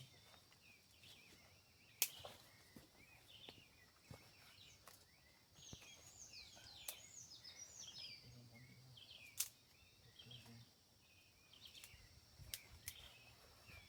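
Forest birds chirping, many short quick notes, some falling in pitch, busiest in the middle. Several sharp clicks or snaps stand out over them.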